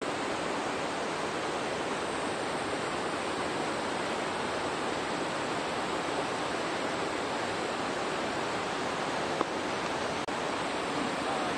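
Steady rushing of flowing water, an even hiss without pauses, with one brief click about nine seconds in.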